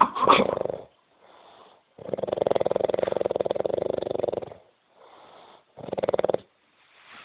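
A drunk man snoring heavily: three loud rattling snores, the middle one long, with fainter breaths between them.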